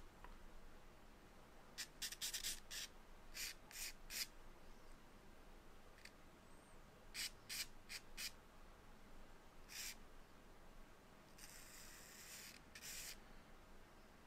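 Faint scratching of a charcoal stick drawing on paper: short strokes in small clusters, with a longer stretch of rubbing strokes about eleven seconds in.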